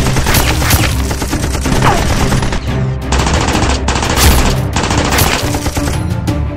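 Automatic-gunfire sound effects in several bursts of rapid shots, over background music.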